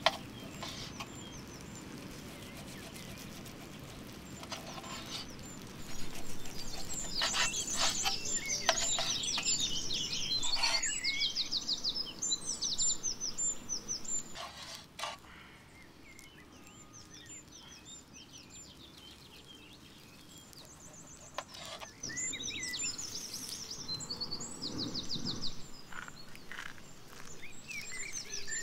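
Songbirds singing in two spells of rapid chirps and trills, with quieter outdoor background between them. There is one sharp knock at the very start.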